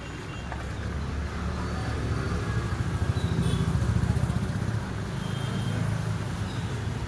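Low engine rumble of a passing motor vehicle, swelling to its loudest about halfway through and then fading.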